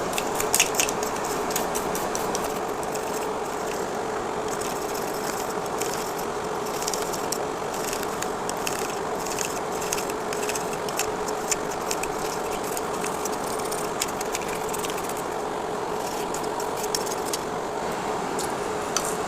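Soldering fume extractor fan running with a steady whir and hum. Over it are many small irregular clicks and ticks from a toothbrush head being scrubbed over the blades of a dusty computer fan.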